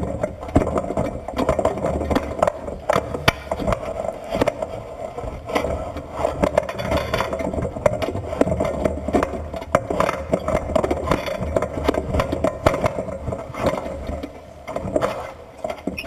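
A tiger shark biting and bumping a perforated bait drum wrapped in black neoprene, heard underwater: repeated knocks, scrapes and rattles of the rig over a steady drone.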